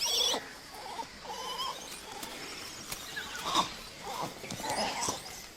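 Langur monkeys calling: a series of short, uneven cries that rise and fall, with a louder one about three and a half seconds in. The calls come as the troop reacts to a baby that seems injured.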